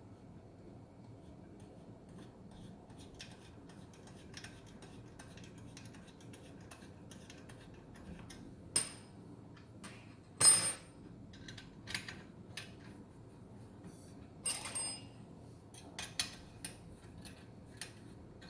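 Small metal parts clinking and tapping as screws and bracket pieces are handled and fitted, with scattered light clicks. Three sharper metallic clinks ring briefly about nine, ten and a half and fourteen and a half seconds in.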